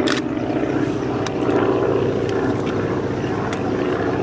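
Diesel engines of GE freight locomotives (a Dash 8-40CW and a Dash 9-44CW) running with a steady, pulsing low drone. A brief sharp click comes right at the start.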